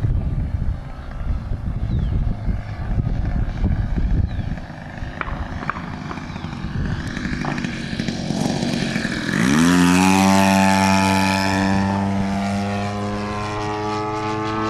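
Radio-controlled model airplane's engine, with a low rumble over it for the first nine seconds. About nine seconds in the engine is throttled up: its pitch rises sharply, it is at its loudest for a moment, then it runs steadily at high power with the pitch sagging slightly.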